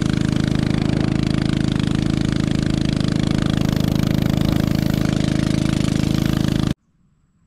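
Small engine running at a steady speed with a rapid, even pulse. It cuts off abruptly near the end.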